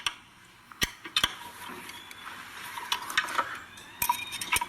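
Scattered metallic clicks and clinks from a hand tool working the motor mounting screws as they are tightened, with a quick run of clicks near the end.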